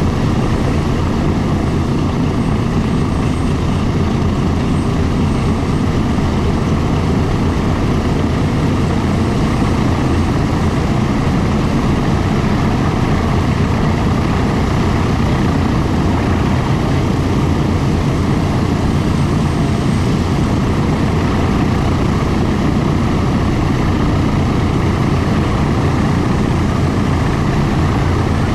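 Boeing B-29 Superfortress's four Wright R-3350 radial engines running steadily at low power, a loud, even, deep drone.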